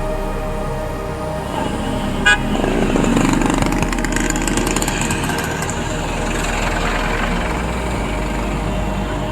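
Background music over street noise: a brief horn toot about two seconds in, then a swell of vehicle noise that fades after a few seconds.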